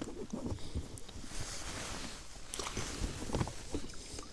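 Close handling noise in an inflatable boat: irregular soft knocks and bumps with rustling of clothing and a landing net against the rubber tube.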